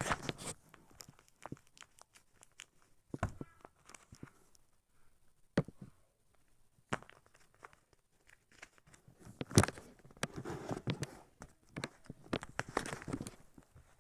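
Irregular handling sounds of paper squishies being picked up and squeezed: scattered taps and knocks with short rustles of paper, the loudest a sharp knock about nine and a half seconds in.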